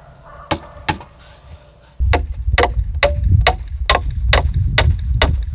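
Hammer driving nails into a cedar framing stud: two blows, then a steady run of about eight blows at roughly two a second. Wind rumbles on the microphone under the later blows.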